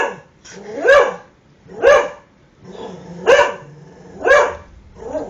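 A dog barking steadily, about one bark a second, six barks in all: a frightened dog just after a close thunderclap.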